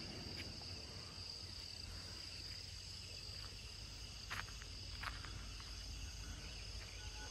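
Insects chirring steadily in a high, even tone, with a couple of faint ticks a little past the middle.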